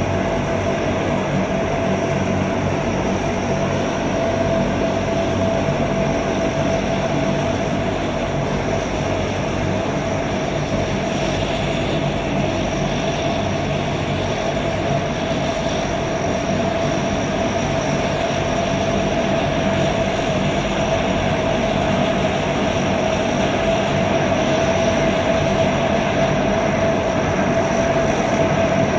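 The NASA Super Guppy Turbine's four Allison 501 turboprop engines running as the plane taxis: a steady whine over a low drone.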